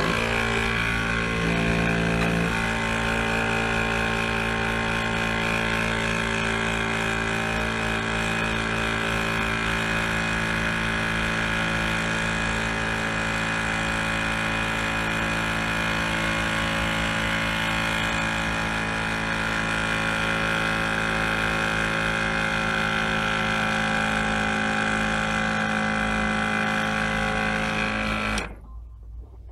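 A motor running at a steady speed, a constant mechanical hum with several fixed tones, starting suddenly and cutting off about a second before the end.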